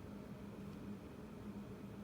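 Faint steady low hum with hiss: room tone.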